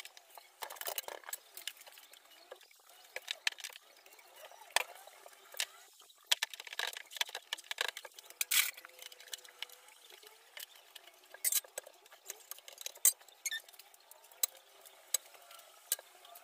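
Glass bottles clinking and tapping against each other and on a tray as they are set down. A cloth rubs over the glass of a mirror and the dresser top in short strokes.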